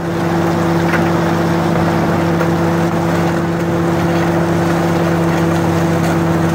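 Engine running steadily at constant speed, over the hiss and splash of a pressure-hose water jet washing ore down a gold wash plant's sluice.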